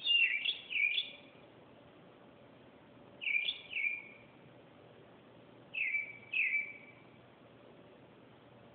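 A bird calling in short whistled notes that leap up and drop down in pitch: three quick notes at the start, two more about three seconds in, and another two about six seconds in.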